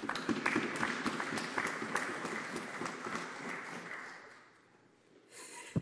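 Applause from members in a parliamentary chamber: many quick, overlapping claps that hold for about four seconds and then die away. Near the end there is a short rush of noise and a single knock.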